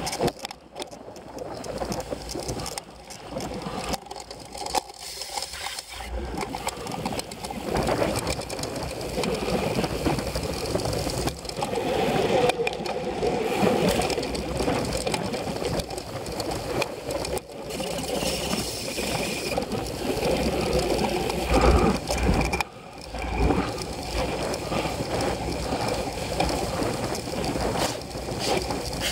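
Cyclocross bike ridden over rough grass and dirt, heard through a camera mounted on the bike: a steady rattling rumble from the frame, chain and tyres on the bumpy ground, with many clicks and knocks from bumps.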